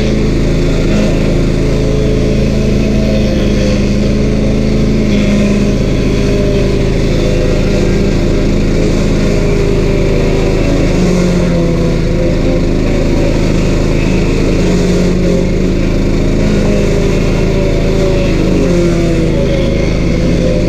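A stump grinder's 13 HP Honda single-cylinder engine running steadily at speed. Its pitch dips slightly now and then under the load of the cutter wheel.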